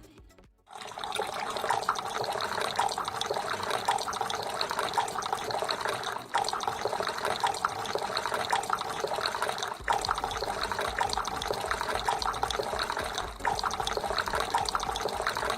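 Water falling and splashing steadily in a small homemade decorative waterfall made from a plastic bottle, with a few brief breaks.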